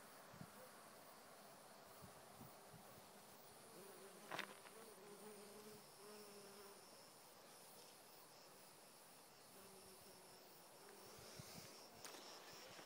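Faint buzzing of honeybees working flowering thyme, swelling and fading as bees pass close to the microphone, with a brief click about four seconds in.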